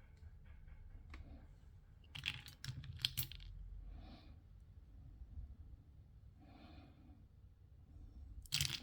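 Small plastic clicks and rattles from handling and opening gashapon toy capsules: a quick cluster of clicks a couple of seconds in, softer rustling, and one sharp click near the end.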